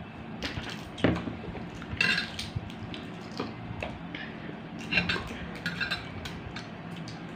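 A metal spoon clinking against dishes, with scattered taps and cracks of balut eggshells being peeled by hand. The clearest ringing clinks come about two seconds in and again around five to six seconds.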